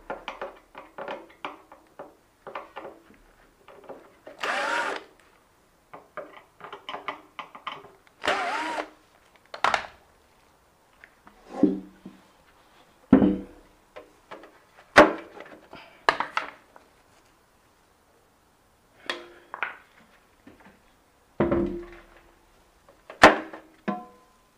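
Electric drill-driver run twice in short bursts of under a second, driving screws on a Haier front-loading washing machine being taken apart, with scattered sharp clicks and knocks of tools and metal and plastic parts being handled between the bursts.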